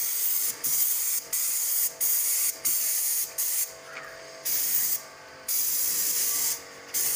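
Hose-fed paint spray gun hissing as it sprays paint onto a wall, in repeated bursts of about half a second to a second with short breaks between them. A faint steady hum runs underneath.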